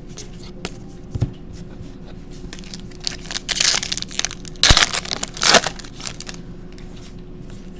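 Foil wrapper of a 2015 Topps Valor football card pack being torn open and crumpled by hand: a few crinkling rips about three to five and a half seconds in, with a sharp click near five seconds.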